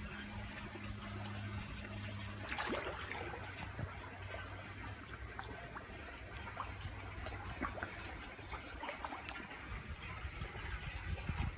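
Pond water trickling steadily, with a low hum in the first couple of seconds and a few faint clicks.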